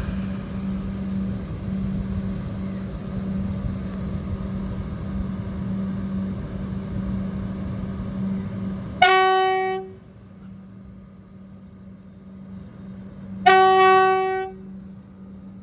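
Alstom Comeng electric suburban train running with a steady rumble and hum that drops away about nine seconds in, as the driver sounds two short blasts of its horn about four seconds apart, a friendly horn salute. Each blast is a single note with a bright, reedy edge.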